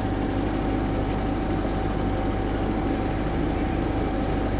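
1991 VW Jetta 16v's four-cylinder engine idling steadily, heard from inside the cabin.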